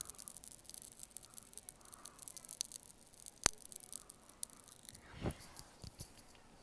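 Popping candy crackling in the mouth close to the microphone: many tiny irregular pops, with one sharper pop about three and a half seconds in and a soft, duller mouth sound about five seconds in.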